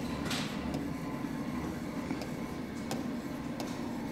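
Stylus tapping and sliding faintly on an interactive display's glass screen as words are handwritten, with a few light clicks. Under it runs a steady low room hum.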